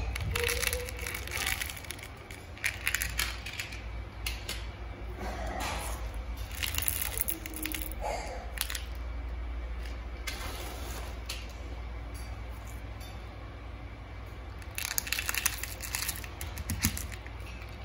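Small coloured pebbles pouring out of plastic tubs onto artificial grass, clattering and rattling in several bursts of quick clicks.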